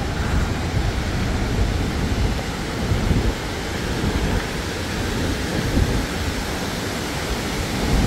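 Alpine waterfall: a steady, loud rush of falling water, close enough that its spray reaches the listener.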